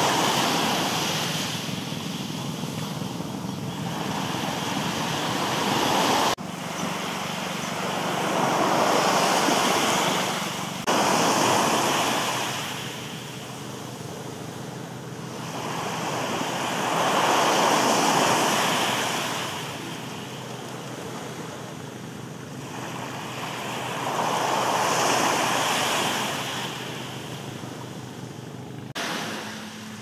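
Small waves washing onto a sandy, shell-strewn shore, swelling and fading every few seconds, with a steady low hum underneath.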